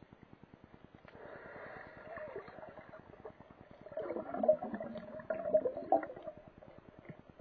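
A snorkeler breathing and gurgling through a snorkel, heard from an underwater camera: a weaker breath about a second in, then a louder, bubbly gurgling stretch from about four to six and a half seconds. A faint, fast, steady ticking runs under it.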